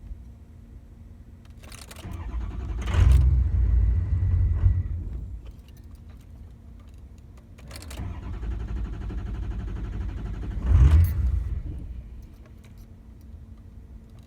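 Ford F-250 engine cranked twice in a hard start. Each attempt runs a few seconds and ends in a brief louder surge.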